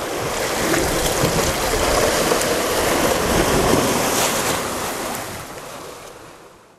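Sea surf washing against rocks: a steady rushing that swells and then fades away near the end.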